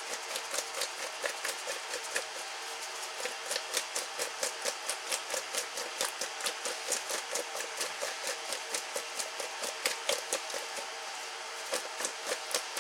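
Sliced potatoes tumbling and knocking against the inside of a speckled enamelware bowl as it is tossed to coat them in butter and seasoning: rhythmic knocks, about two or three a second, with a brief pause near the end. A steady hiss underneath.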